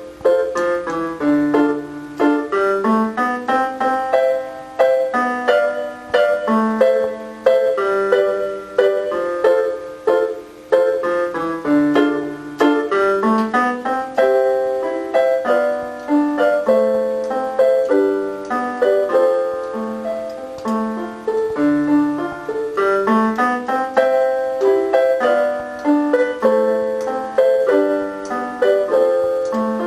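Casio LK-230 portable keyboard played on a piano voice: a melody over chords and a moving bass line, with a steady stream of struck notes.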